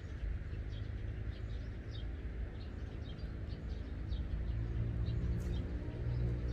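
Small birds chirping in short, scattered high notes over a steady low rumble.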